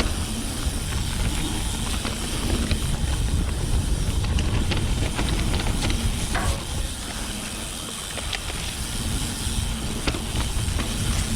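Orbea Occam full-suspension mountain bike being ridden along a dirt trail: wind rumbling and hissing over the microphone, tyre noise, and scattered sharp clicks and rattles from the bike.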